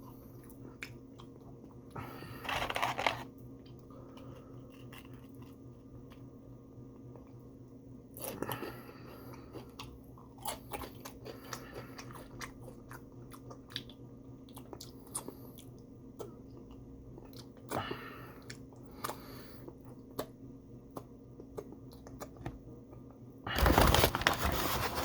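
Close-miked chewing and crunching of fried fast food (chicken strips and curly fries), with small mouth clicks and a few short louder bursts, the loudest a noisy burst near the end. A steady low hum runs underneath.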